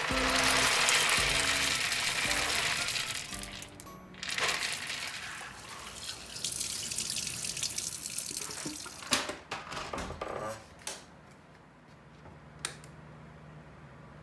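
Kitchen tap running into a glass bowl in a stainless steel sink as food is rinsed, the flow dropping away briefly about four seconds in. A few sharp knocks come between about nine and thirteen seconds, and the water has stopped by the end.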